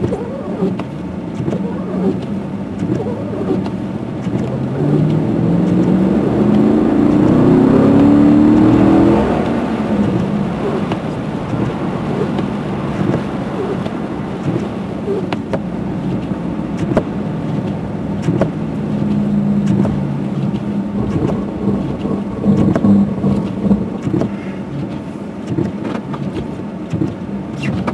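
Chevy Silverado pickup truck's engine and road noise heard from inside the cab while driving; the engine speeds up with a rising pitch about five seconds in, loudest near nine seconds, then settles to a steady run.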